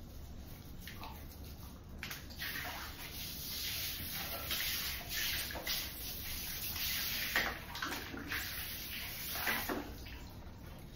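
Water running and splashing as a wet dog is rinsed in a shower stall, starting about two seconds in and stopping near the end.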